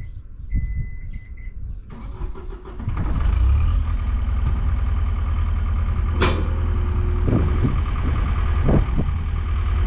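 An engine running steadily, with a sharp metallic knock about six seconds in. It comes in loudly about two seconds in, after a quieter stretch that holds a brief high steady tone.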